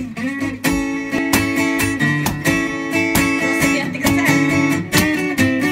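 Acoustic guitar strumming chords as a song begins, with a steady rhythm of strokes.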